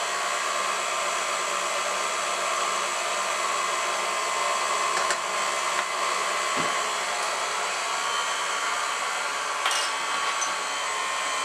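KitchenAid stand mixer running steadily on low speed, a constant motor whir with a faint steady hum, its wire whisk beating heavy cream at the soft-peak stage while sugar is added.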